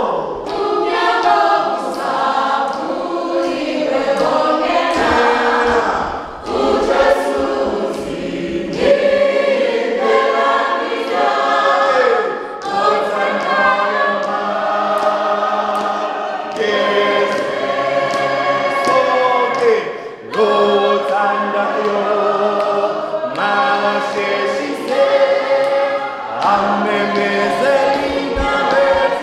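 A choir of mixed voices singing a church hymn, phrases held for a few seconds each with short breaks between them.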